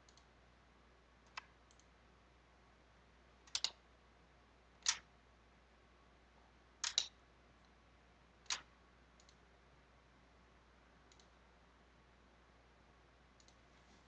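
Computer mouse clicks, about half a dozen scattered short clicks with two quick double clicks, over a faint steady low hum.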